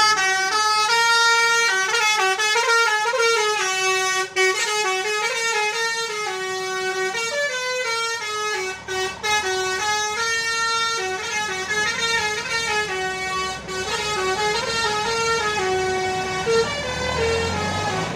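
Tour bus basuri horn, a multi-trumpet melodic air horn, playing a tune: a run of short, steady notes stepping up and down one after another. A low engine rumble rises near the end.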